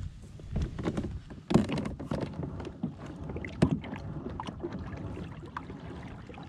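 Knocks and bumps on the plastic hull and deck of an Old Town Sportsman 106 fishing kayak as the angler shifts in the seat and handles his gear, the two loudest about a second and a half and three and a half seconds in, over a low rumble.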